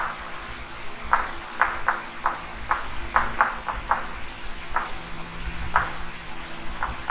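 Chalk writing on a blackboard: a string of about a dozen short, irregular taps and clicks as the chalk strikes and lifts from the board with each letter and symbol.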